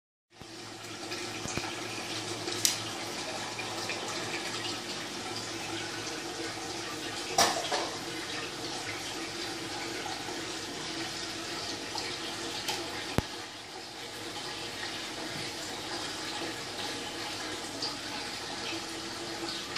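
Steady splash and trickle of water in a large home aquarium, the surface kept moving by the circulating water, with a few short sharp clicks, the loudest about seven seconds in.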